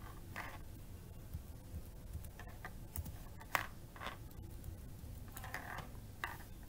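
A few scattered keystrokes on a computer keyboard, short irregular clicks with the sharpest about three and a half seconds in, over a low steady hum.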